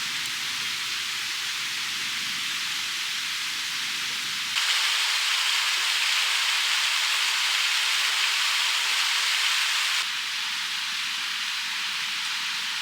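Steady hissing noise, like sizzling or steam. It jumps abruptly louder a little over four seconds in and drops back just as suddenly near ten seconds.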